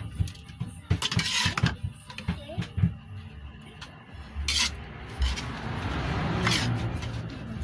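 A utensil knocking and clanking against a cooking pan while food is stirred: a run of sharp knocks in the first three seconds, then a steadier scraping rustle from about five seconds in.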